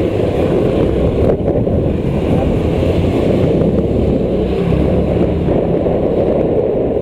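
Steady wind rush over the microphone of a moving Honda Activa 125 scooter, with the scooter's single-cylinder engine and tyre noise running underneath.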